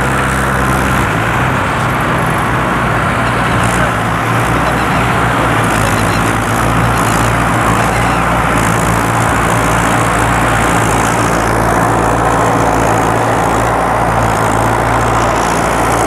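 Diesel engines of two Mahindra Arjun 555 tractors running together under heavy load, hitched in tandem to pull one two-bottom mouldboard plough for deep ploughing. A loud, steady engine drone; the low engine note shifts about a second in.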